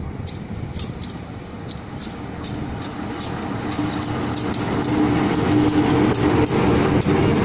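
GE C18MMi (CC 204) diesel-electric locomotive approaching slowly and passing close by, its engine growing louder, with a steady hum joining about halfway through. A fast, even ticking runs underneath.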